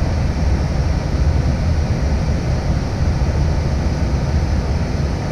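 Steady flight-deck noise of an Airbus airliner on short final approach: a constant rush of airflow and engine sound, with a low rumble strongest.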